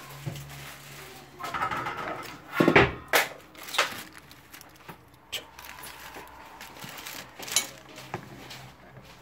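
Kitchen handling noises: a short rustle, then a few knocks and clatters as a kitchen knife and other items are handled on a plastic cutting board, the loudest about three seconds in, followed by a few light clicks.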